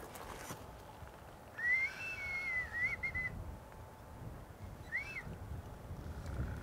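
A whistled call about a second and a half in, rising and then wavering for under two seconds, followed near five seconds by a short rising-falling whistle.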